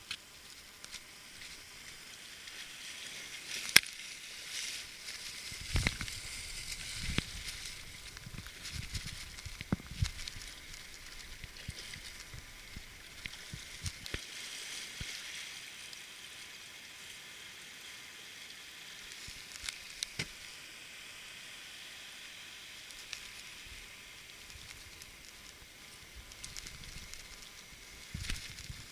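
Steady fizzing hiss of breaking surf and foam washing around an inflatable boat, with scattered dull thumps and a few sharp knocks.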